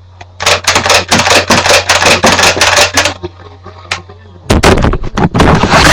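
Nerf Barricade's battery-powered flywheel motor humming while darts are fired off in a quick run of sharp clicking shots. About four and a half seconds in, the hum stops and a loud noisy rush follows.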